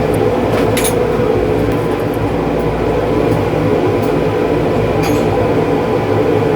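Steady, loud machine drone with a constant low hum and a few sharp clicks, about a second in and again around five seconds.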